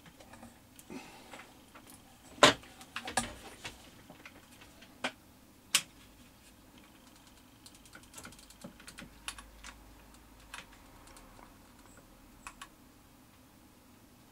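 Hand tools and a hot glue gun being handled on a workbench beside an opened plastic radio transmitter, making irregular clicks and light knocks. The sharpest knocks come a couple of seconds in, followed by a scatter of smaller clicks.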